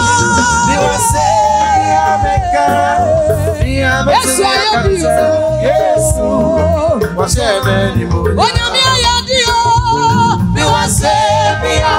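A woman singing into a microphone over a live band with drums and bass guitar. She holds long notes that waver in pitch.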